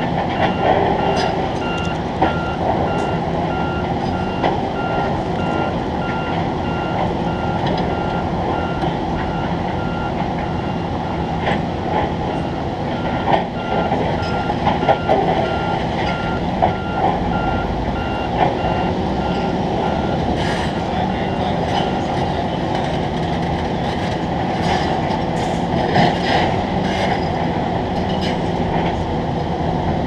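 A reversing alarm on site machinery beeping in an even rhythm over a steady heavy-machinery rumble; the beeping stops about twenty seconds in, and a few sharp clicks and rattles follow.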